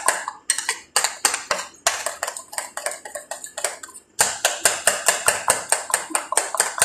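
A utensil beating a cream topping by hand in a ceramic bowl, clicking against the bowl several times a second, with a brief pause about four seconds in.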